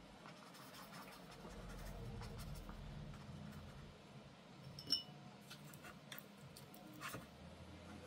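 Faint watercolour brushwork: a paintbrush scratching and dabbing on paper with small clicks, over a soft low rumble in the first few seconds. About five seconds in there is a single sharp, ringing clink of glass.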